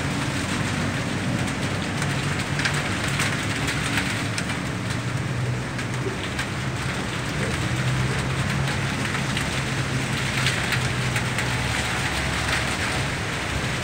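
Steady rain falling, an even hiss flecked with many small drop impacts, with a low steady hum underneath.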